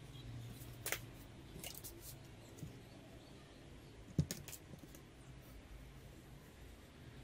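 A few light clicks and taps as a plastic set square is shifted and set down on a work board, the loudest about four seconds in, over a faint low hum.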